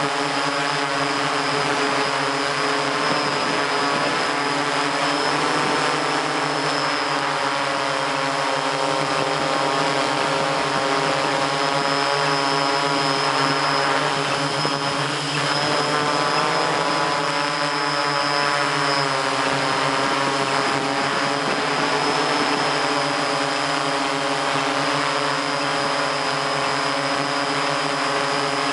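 MikroKopter hexacopter's six electric motors and propellers running steadily in flight, heard close up from the camera on its frame: a drone of several pitches with a thin high whine on top, the pitches wavering slightly as the craft holds its course.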